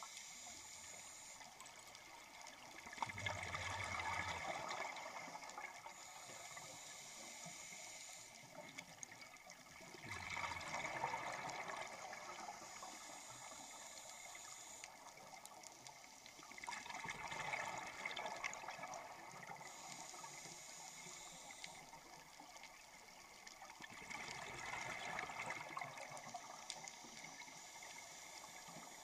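Scuba diver breathing through a regulator underwater: four bursts of exhaled bubbles, about seven seconds apart, with a fainter hiss of inhaling between them.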